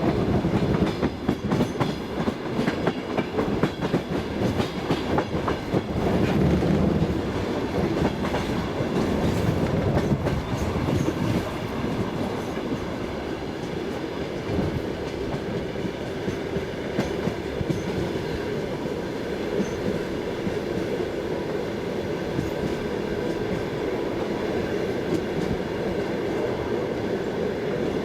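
Passenger train carriage running along the track: wheels rumbling and clattering on the rails. Dense clicks in the first half ease into a steadier rumble later on.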